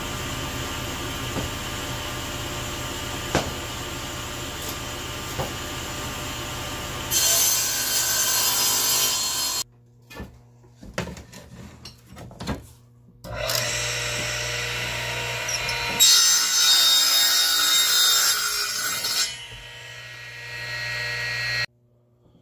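Electric shop saws cutting plywood. A saw motor runs steadily, then bites into the sheet about seven seconds in. After a short break with a few light knocks, a radial arm saw runs, cuts through a plywood strip (loudest from about sixteen to nineteen seconds in), then runs on without load.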